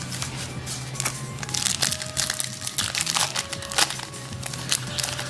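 Wrapper of a baseball card pack crinkling and rustling in irregular crackles as it is handled and opened, over faint background music.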